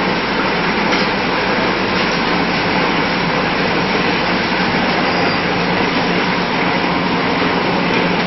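Sawdust briquette production line machinery running steadily: conveyors and a motor-driven screw feeder carrying sawdust, a constant low hum under a dense, even rushing noise.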